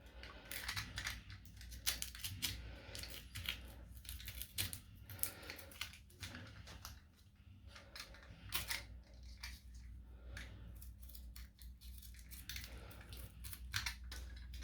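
Knife blade cutting through the tape that binds LiFePO4 battery cells: a run of irregular scraping, crackling strokes.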